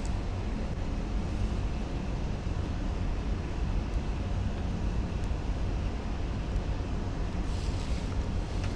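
Central air conditioning blowing steadily from a vent: an even, unbroken rush, heaviest in the low range, with a faint steady tone running through it.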